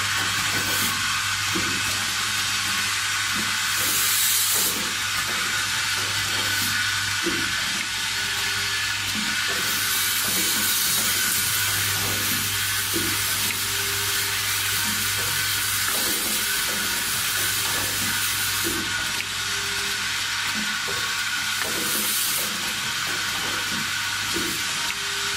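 Automated O-ring assembly machine running: a steady low hum under a constant hiss of air, with irregular light clicks and knocks from the mechanism. Louder stretches of hiss come and go, the longest through the middle.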